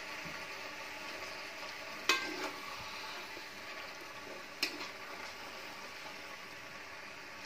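Pieces of fried chicken sizzling in hot masala in a large kadhai, a steady frying hiss, with two sharp metallic knocks against the pan about two and four and a half seconds in.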